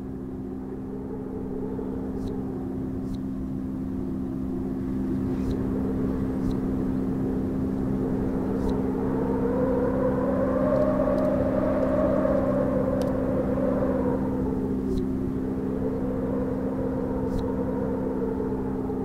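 A low steady drone with a pitched hum that slowly rises and grows louder towards the middle, then falls away and swells again more faintly. A few faint, irregular ticks sit above it.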